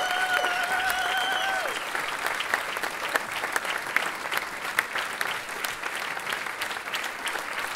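Concert audience applauding, with whistles and a held cheer over about the first two seconds.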